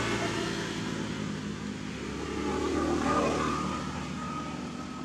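A motor vehicle engine running, growing louder and rising in pitch about three seconds in.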